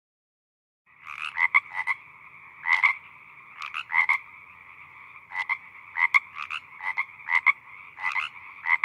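Frog croaking, starting about a second in: many short, sharp croaks, several in quick pairs, over a steady background drone.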